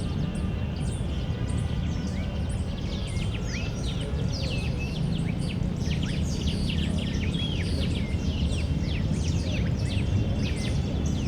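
Many small birds chirping and calling in a park, dense quick falling chirps throughout, over a steady low background rumble.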